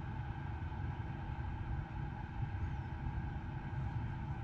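Steady low rumble with a faint even hum, the background noise inside a car's cabin.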